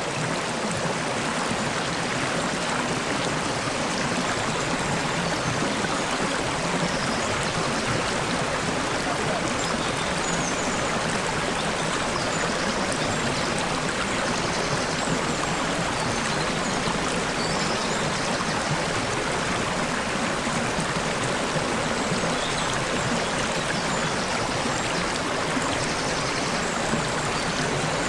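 Steady babbling of a flowing stream, water trickling over stones without a break, with faint short bird chirps high above it now and then.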